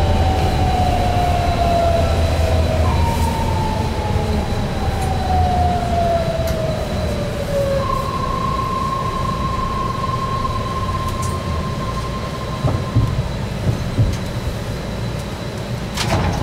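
BART train slowing: the propulsion whine glides down in pitch twice over several seconds while the rumble of the wheels on the rails eases. Then comes a steady whine for a few seconds, and a few knocks and a sharp click near the end.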